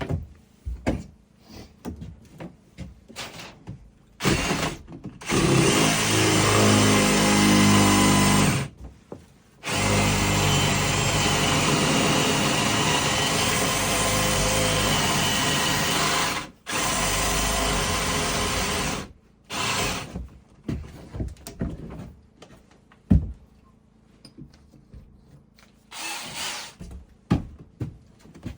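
Power drill running into wood in several long runs of a few seconds each, the motor spinning up then holding under load, with knocks and handling clicks between the runs and a sharp knock near the end.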